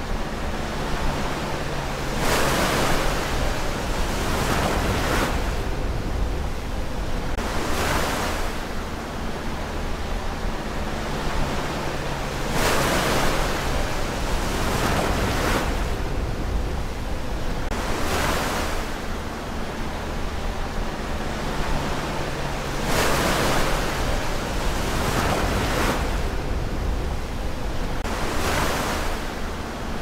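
Ocean waves breaking on the shore, each wash of surf swelling up and fading away every few seconds over a steady rush of water.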